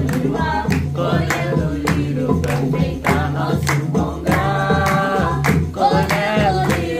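Voices singing a devotional song to steady rhythmic clapping, about two claps a second, over a repeating low beat, with long held notes.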